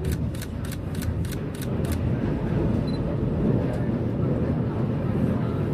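Passenger train running, a steady low rumble heard from inside the carriage. A quick, even clicking, about three clicks a second, stops about two seconds in.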